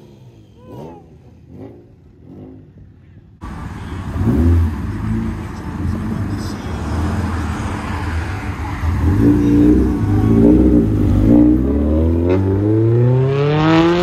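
Performance car engines accelerating away in short cut-together clips. First a faint engine climbs repeatedly in pitch, then a sudden cut to loud engine noise. Near the end come revving swells and a long full-throttle pull rising steadily in pitch.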